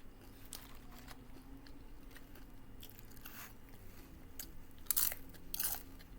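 Close-up crunching and chewing of a tortilla chip loaded with taco salad, with irregular crisp crunches, the loudest about five seconds in.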